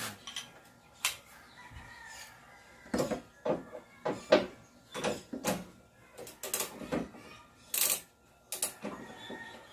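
Hand tools and loosened engine-bay parts clicking and clanking while an air cleaner housing's bolt and hose clip are undone: irregular separate knocks, one sharp click near the end the loudest.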